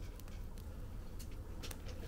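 Wood fire in a fire pit crackling, with a handful of sharp pops over a steady low rumble.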